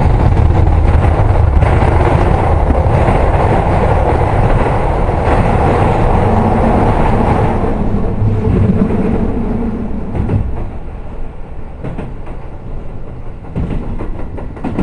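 Keio 7000 series electric train running, heard from inside the passenger car: a dense rumble of wheels on rail with scattered clicks over the rail joints. The noise falls away noticeably about ten seconds in and stays lower after that.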